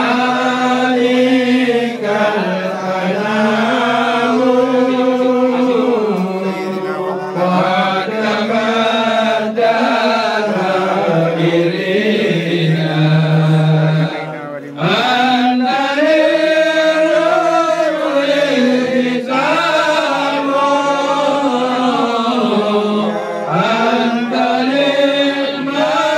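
Vocal chanting in a slow melody of long, drawn-out, wavering notes, with a brief break about fourteen seconds in.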